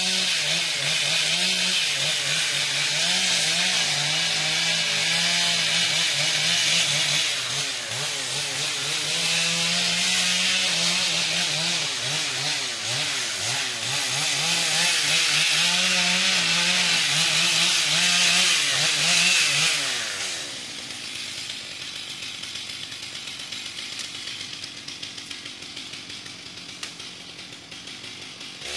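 Stihl MS 660 two-stroke chainsaw with a 36-inch bar running at high revs, cutting through brush, its pitch wavering as the chain bites and frees. About twenty seconds in it drops to a quieter idle, then revs up again at the very end.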